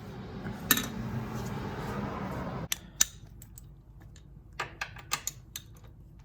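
Metal hand tools and sockets being handled: a sharp clink, a rustling clatter that stops abruptly just under three seconds in, then another sharp clink and a run of light metallic clicks, as a deep socket is fetched and fitted to a ratchet.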